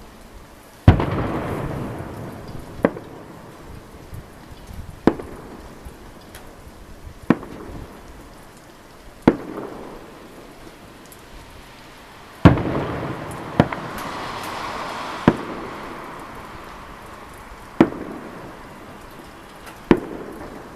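Fireworks salute: aerial shells bursting with sharp booms about every two seconds. The two biggest bursts, about a second in and again near the middle, trail off in a long echoing rumble and crackle.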